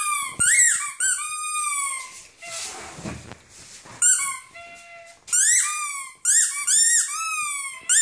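A dog chewing a squeaky toy, making a rapid series of squeaks that each rise and fall in pitch. About two seconds in the squeaking stops for roughly three seconds, with rustling and one faint squeak, then resumes in quick succession.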